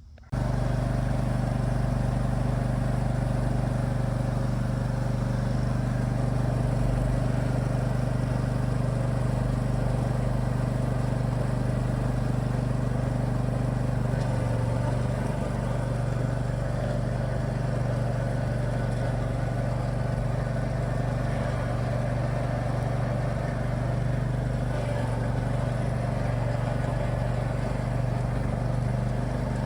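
Gravely ZTX-42 zero-turn mower's engine running steadily with a deep hum. It cuts in suddenly right at the start.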